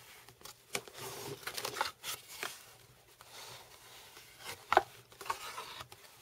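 Cardboard packaging being opened and handled: rustling and scraping of the box's flaps, with a few sharp clicks, the sharpest about three-quarters of the way through.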